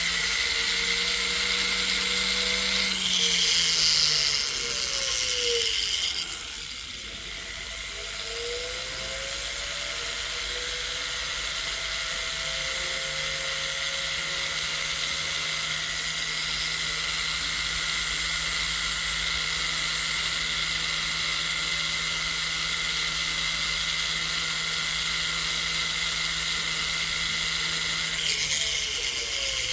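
Jeweler's rotary tool spinning a silicone wheel against a gold chain's end tab, a steady motor whine. It winds down almost to a stop about six seconds in, speeds back up, runs steadily, and slows again near the end.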